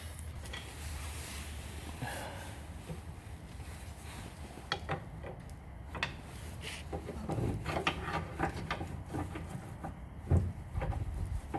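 Scattered knocks, scrapes and clunks of hand tools and the old rear shock absorber as it is worked free of its mount, over a steady low hum. The knocks grow busier in the second half, with the loudest one near the end.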